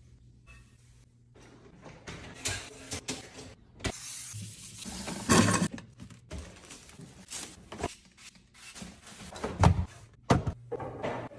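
Groceries and containers being handled and set down while restocking: scattered knocks and clicks, with a longer stretch of rustling packaging about four to six seconds in.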